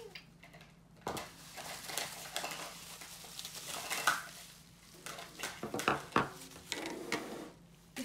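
Plastic Pustefix bubble-solution tubes being handled and set down on a table: scattered light clicks and knocks of plastic on the tabletop, with some rustling between them.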